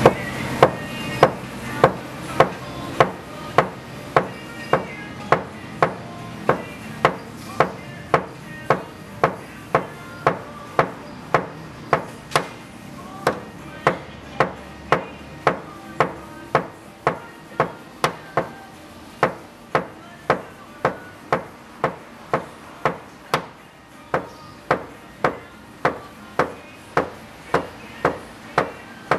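Steady light hammer taps on a car's sheet-metal body panel, about two a second with a brief pause midway, as in tapping down high spots during paintless dent repair. Each tap is sharp with a short metallic ring.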